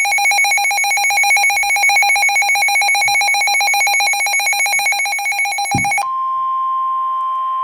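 Weather-alert radio alarm: a loud, rapidly trilling electronic ring for about six seconds, then an abrupt switch to one steady tone of about 1 kHz, the NOAA Weather Radio warning alarm tone that comes before a severe weather warning.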